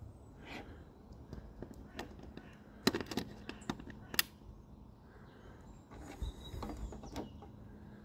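Handling clicks and knocks of a Garmin Zumo 395 satnav being fitted into its handlebar cradle, with a few sharp clicks about three to four seconds in.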